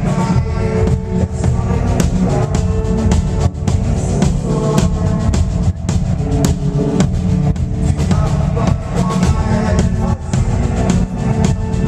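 A live band playing, with a drum kit's bass drum and snare hits keeping a steady beat under sustained pitched notes.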